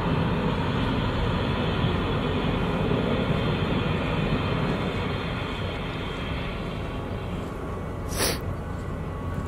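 The car ferry Konpira 2's engines and propulsion rumbling steadily as it manoeuvres slowly alongside the berth, easing off a little near the end. A brief sharp burst of noise cuts in about eight seconds in.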